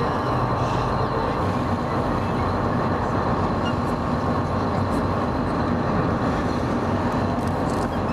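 A boat's engine running steadily, a constant hum with dense rumbling noise.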